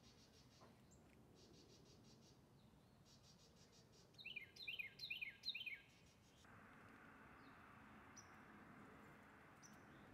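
A songbird sings a short run of quick chirps that slide downward in pitch, in four tight groups, about four seconds in, with a few faint single chirps around it. A steady faint hiss of outdoor background noise comes in about halfway through.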